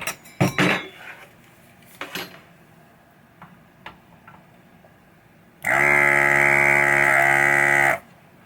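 A few light clicks and taps of tools on the circuit board. Then, about two-thirds of the way in, an electric desoldering tool's vacuum pump buzzes steadily for about two seconds and cuts off abruptly, sucking solder off a header pin to free it from the board.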